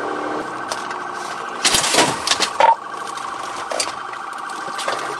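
Police car siren sounding a fast warbling tone throughout the pursuit, with a few loud crackling bursts about two seconds in.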